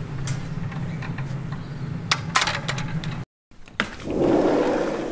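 A few sharp clicks of a pool gate being pushed open and shut over a steady low hum, then, after a short break, a sliding glass door rolling open along its track.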